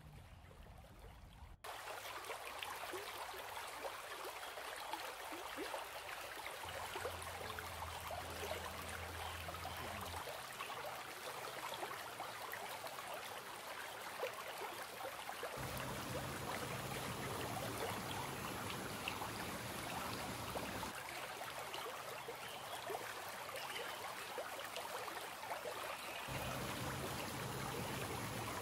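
Running water: a steady, even rush of a garden stream, starting up louder about a second and a half in.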